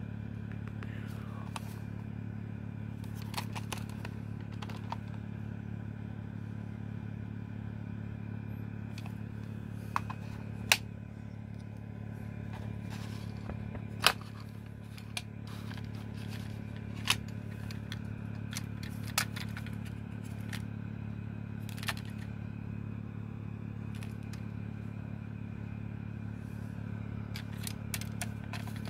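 Plastic clicks and light clatter as a TDK cassette tape is handled and pressed into the tape compartment of a Sony WM-FX425 Walkman cassette player. The sharpest clicks come about 11 and 14 seconds in. A steady low hum runs underneath.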